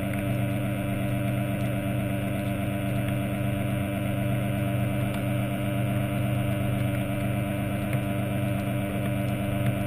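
Underwater diver propulsion scooter's motor and propeller running steadily, heard underwater, a constant drone that holds one pitch.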